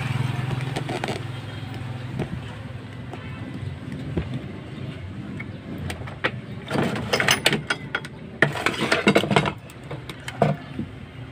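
Clicking and rattling as a CRT television's chassis board and its wiring are handled and pulled out of the cabinet, coming in bursts from about six and a half seconds to ten and a half. Under it runs a low steady hum, loudest at the start.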